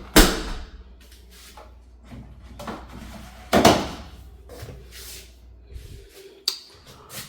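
Clothes and a front-load dryer being handled, with two heavy thumps, one just after the start and one about three and a half seconds in, and smaller knocks between. A low hum stops about six seconds in, and a sharp click follows as the dryer door latches shut.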